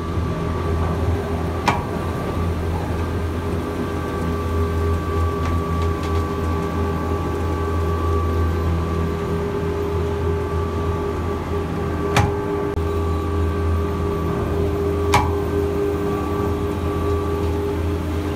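Detachable gondola lift's top station running: a steady mechanical hum and whine from the station machinery as cabins move through. Three sharp clacks cut through it, one near the start and two more about three seconds apart later on.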